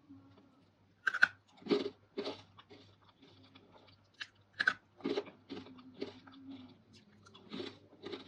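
Close-miked crunchy eating of dried fruit and vegetable pieces: a sharp crackling bite about a second in and another near the middle, each followed by a run of crunchy chews.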